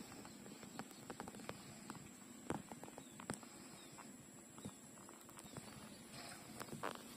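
Puppies suckling at their mother dog's teats: faint, irregular wet smacking and sucking clicks, with a couple of louder smacks a few seconds in.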